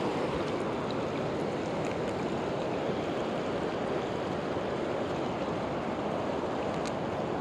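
Steady rush of a river running high and fast, an even wash of flowing water.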